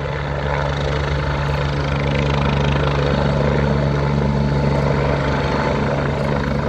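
Twin-turbine AgustaWestland A109 Grand helicopter hovering low and coming in to land, its rotors and engines running with a loud, steady noise and a constant low hum.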